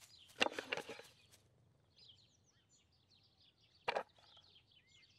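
Faint birds chirping in a cartoon outdoor ambience, with a brief rattling clatter about half a second in and a single sharp click about four seconds in.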